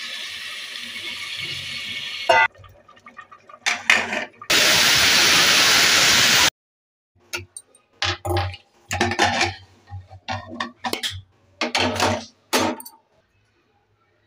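Water pouring into a pressure cooker full of rice and potatoes. About four seconds in, the pressure cooker's whistle lets off a loud blast of steam for about two seconds, the sign that it has come up to pressure, then a run of short, uneven bursts of noise.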